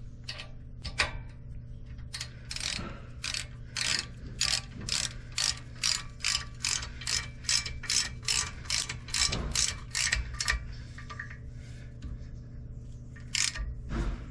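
Ratchet wrench clicking in quick, even strokes, about two or three a second, as a bolt is turned. The clicking stops about ten seconds in, with one more click near the end.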